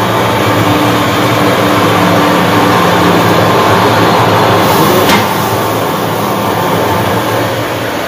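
Small rice-hulling mill running steadily as paddy is fed into its hopper: a loud, even machine drone with a low hum, and one short sharp click about five seconds in.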